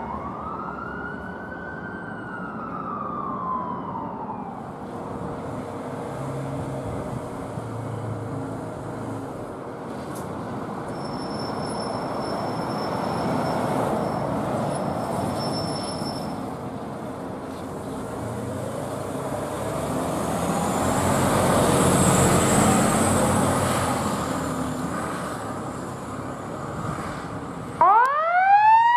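Emergency vehicle siren: one wail rises and falls away in the first few seconds, then heavy road traffic noise swells twice as vehicles pass, and near the end a siren starts up loud with a fast rising wail.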